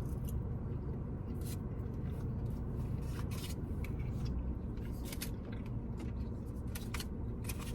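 Short scrapes and rustles of a fork working in a foil takeout container of barbecue, scattered irregularly over a steady low hum.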